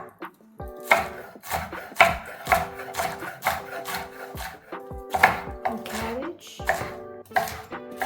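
Knife chopping on a cutting board in sharp, uneven strokes about two a second, with background music playing under it.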